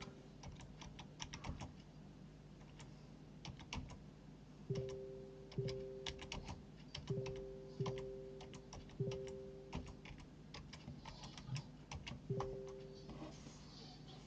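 Quiet typing on a computer keyboard: scattered key clicks in irregular runs. Short two-note tones come in several times underneath.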